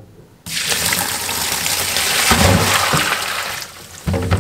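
Salt brine poured from a glass bowl through a plastic colander into a stainless steel sink, a steady rush of splashing water lasting about three seconds. Near the end the cucumbers tumble into the colander with a few low knocks.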